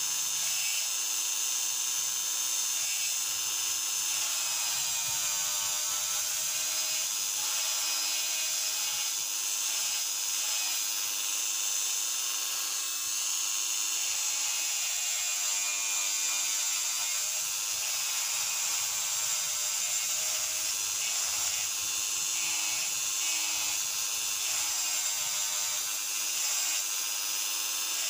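Handheld electric rotary tool running steadily with a high-pitched whine, its fine bit carving into the wood of a pipe.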